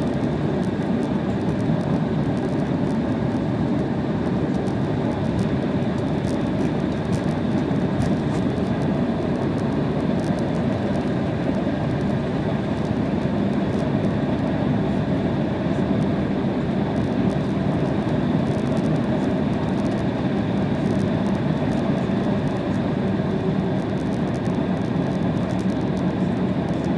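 Steady cabin noise inside an Embraer E190 taxiing: its twin GE CF34-10E turbofans running at low taxi thrust, with a constant rumble and hiss and a faint high whine.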